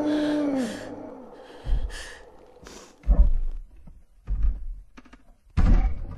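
Horror film sound design: a held low tone from the score slides down and fades within the first second, then four slow, deep thuds come about a second and a half apart, with faint breaths between them.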